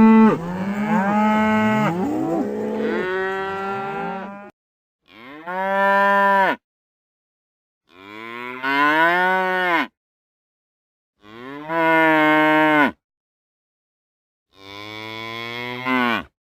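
Cows mooing. For the first four seconds or so several moos overlap, then four single long moos follow, each rising and then falling in pitch, with short gaps of dead silence between them.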